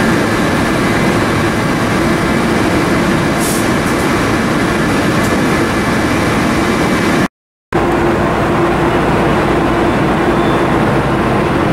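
Steady, loud drone of spray-booth machinery running during painting, an even rush with a constant low hum. It cuts out completely for a split second about seven seconds in.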